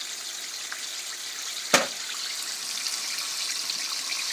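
Chicken wings frying in hot canola oil in a pan, a steady sizzling hiss with fine crackling. A single sharp click about two seconds in.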